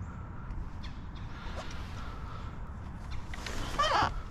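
Mallard quacking as ducks flush off the river: a loud run of falling calls about three seconds in, with fainter calls before it, over a steady low rumble.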